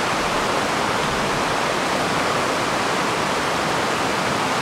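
Rushing mountain stream, white water pouring over rocks under a footbridge, a steady loud hiss.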